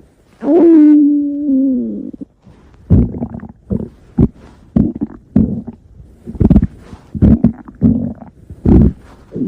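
A person's stomach growling: one long pitched growl that holds steady for over a second and then drops in pitch, followed by a quick, irregular run of short gurgles.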